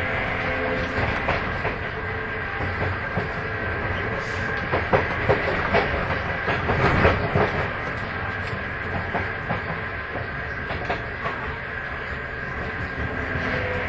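Sotetsu 8000 series electric train car running, heard from inside: wheels clicking over rail joints, most densely around the middle, over a constant rumble and a steady high whine, the jet-like abnormal noise this car is known for.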